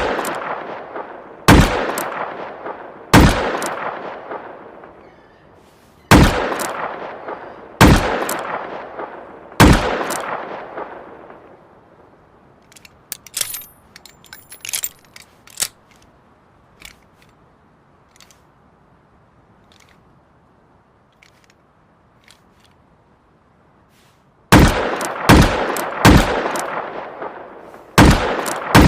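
High-caliber revolver firing single shots, each followed by a long echoing tail. Two shots come early, then three about two seconds apart. A run of small metallic clicks and clinks follows, then a quiet gap, then a quick string of four shots and one more just before the end.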